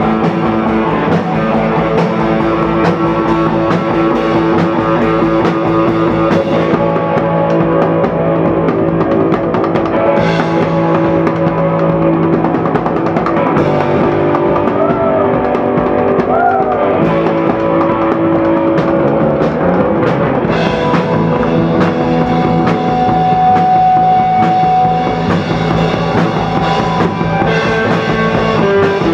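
Rock band playing live: drum kit beating steadily under bass and electric guitar holding sustained notes, with a few sliding guitar notes about halfway through.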